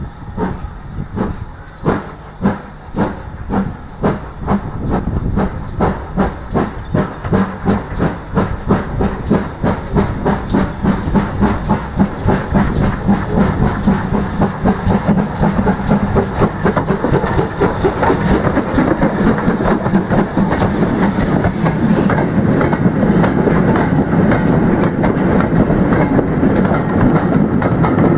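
GWR Prairie tank locomotive 5199 working a train. Its exhaust beats start at about two a second and quicken until they run together, growing louder as it approaches and passes. Near the end the train's wheels clatter over the rail joints as the brake van goes by.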